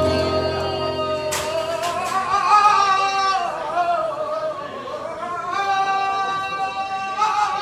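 Flamenco singing: one voice holding long, wavering notes that slide between pitches in melismatic runs. A single sharp knock sounds about a second and a half in.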